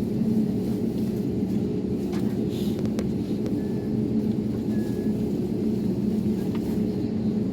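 Airbus A321neo's engines droning steadily as heard inside the cabin: an even, low hum with no change in level.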